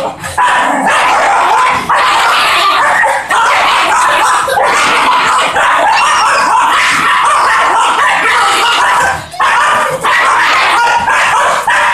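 Two fox terriers wrestling, snarling and growling at each other almost without a break, with a few short pauses.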